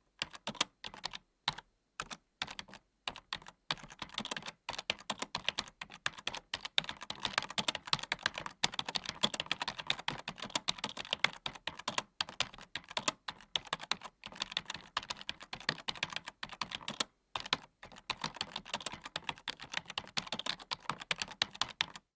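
Typing on a computer keyboard: rapid key clicks. The first few seconds are scattered keystrokes with pauses, then it becomes fast, steady typing, with one brief pause near the three-quarter mark.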